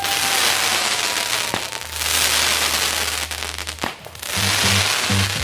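Fireworks crackling densely, with two short lulls, and a faint whistle falling in pitch near the start.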